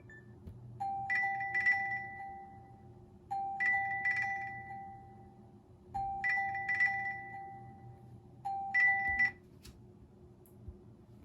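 OnePlus 6T stock ringtone: a short chiming phrase of a low tone under a higher pulsing tone, repeated four times about two and a half seconds apart. It cuts off suddenly partway through the fourth phrase.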